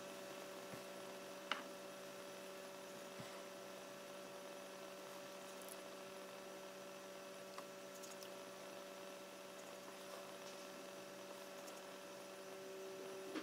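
Faint, steady electrical mains hum, with a small click about a second and a half in.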